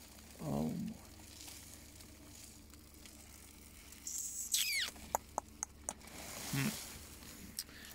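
Rummaging through trash in a dumpster: a quick high squeak, then a handful of sharp clicks and crackles of plastic and packaging, with two brief low vocal sounds from the person digging.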